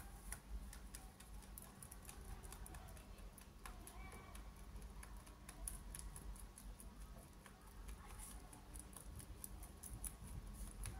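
A young rabbit chewing hay: a quick, irregular run of faint crunching clicks as it nibbles and grinds the dry stalks.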